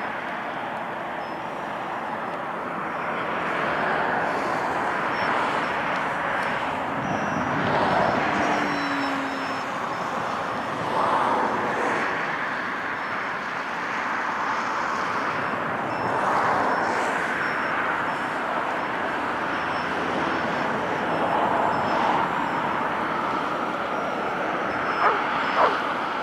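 Radio-controlled model airplane in flight: a steady rushing noise that swells and fades every few seconds, with a faint high motor whine.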